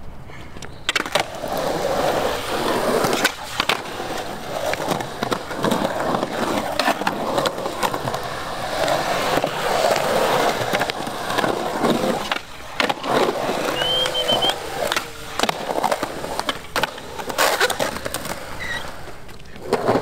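Skateboard wheels rolling over rough concrete, with repeated sharp knocks and clacks of the boards hitting the ground.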